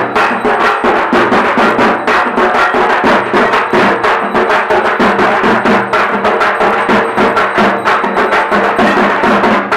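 Fast instrumental percussion music: drums with ringing metal strikes in a dense, even rhythm of several strokes a second over sustained pitched notes.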